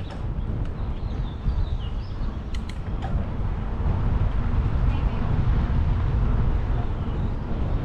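Outdoor rumbling noise, heavy in the low end and rising about four seconds in, with small birds chirping over it in the first few seconds and a couple of sharp clicks.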